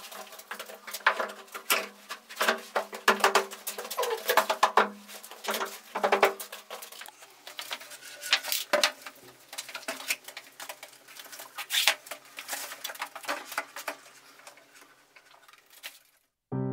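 Irregular knocks, taps and scrapes of upholstered wall panels being handled and hung on wooden wall battens. The knocking is busiest in the first half, thins out and stops shortly before the end.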